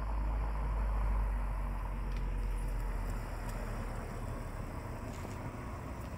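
A car driving slowly across a parking lot and pulling into a space, its engine running at low speed. The low rumble is loudest in the first seconds and fades gradually.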